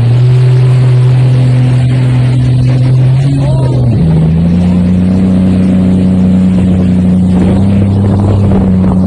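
A motorboat engine running hard at steady revs, stepping up in pitch about four seconds in and holding there.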